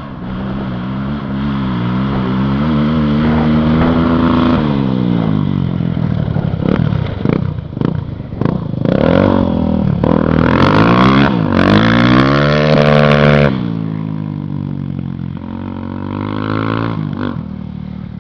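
Honda XR 250 Tornado single-cylinder four-stroke engine, fitted with a stroked crankshaft and the original piston, revving up and down: held high for a few seconds, a few quick blips, another long high-rev run that drops sharply back toward idle, and one last short blip near the end.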